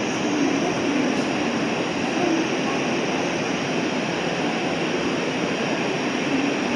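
Steady din of a busy railway station platform, with trains standing at the platform and a low wash of background noise.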